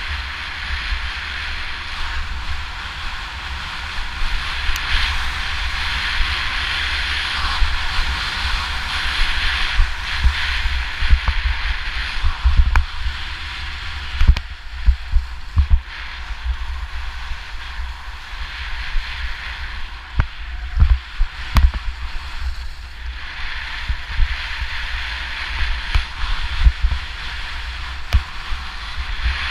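Skis hissing and scraping over hard, crusty snow on a downhill run, swelling and easing with the turns, under a steady rumble of wind buffeting the action camera's microphone. Scattered short knocks run through it.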